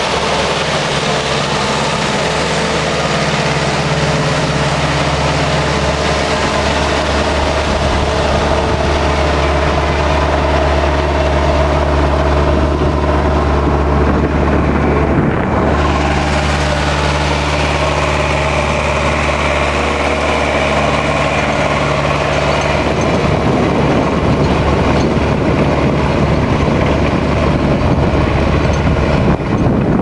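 Zetor tractor diesel engine running steadily under load while ploughing. It belongs to a Forterra 140 HSX pulling a reversible plough, passing close at first. Part of the low engine tone drops away about two-thirds of the way through.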